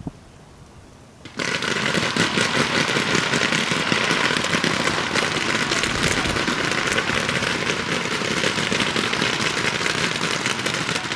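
About forty paintball markers firing all at once in a dense, steady rattle of pops. It starts suddenly about a second and a half in and thins out near the end.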